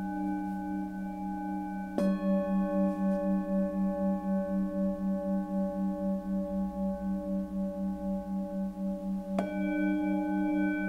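Hand-hammered metal singing bowls struck twice with mallets, about two seconds in and again near the end. Their overlapping tones ring on between strikes, the deepest one wobbling in a slow pulse about four times a second.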